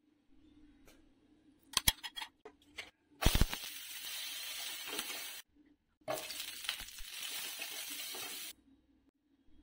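Vegetables sizzling in hot oil in a frying pan, carrot sticks and then green beans with minced garlic, in two stretches of a couple of seconds each that start and stop abruptly. Before them come a few sharp clinks of a spoon against a glass bowl.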